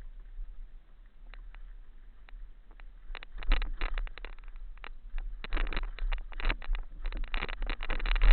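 Mountain bike rattling and clattering over a rough, rocky descent: scattered knocks at first, then dense bursts of rapid knocks from about three seconds in, loudest at the very end, over a steady low rumble.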